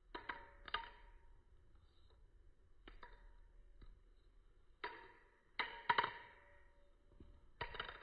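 Henninger Designs Telesto balisong being flipped: the handles clack against the blade tang and each other, giving sharp metallic clicks with a brief ring. About seven clicks come at irregular spacing, two near the start and a tight cluster in the second half.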